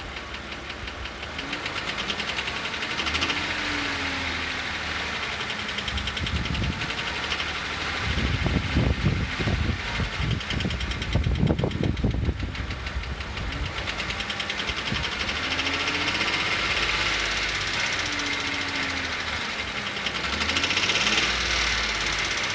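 2008 Jeep Wrangler JK engine running with a fast, steady clicking, a sound that an oil and filter change has not cured. The low rumble gets louder and rougher for a few seconds near the middle.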